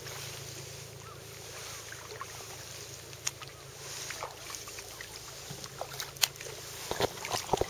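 Double-bladed kayak paddle strokes in calm lake water: blades dipping in and dripping, over a steady hiss. A few sharp clicks and splashes come toward the end, thickest near the close.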